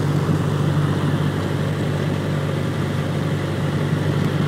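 Beechcraft A23 Musketeer's piston engine and propeller running steadily, a loud, even drone heard from inside the cockpit.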